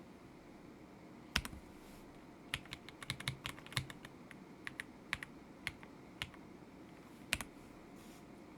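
Mechanical keyboard, a stock KZZI K75 Pro with Moment linear switches, being typed on in irregular spurts: a single keystroke about a second in, a quick run of clacks around three seconds in, scattered keystrokes after that, and one more firm stroke near the end.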